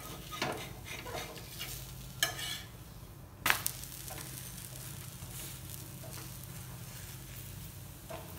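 A besan chilla (chickpea-flour pancake) sizzling in oil on a flat tawa over a high gas flame, as a metal spatula presses and scrapes it against the pan. A few clacks of the spatula on the pan, the sharpest about three and a half seconds in.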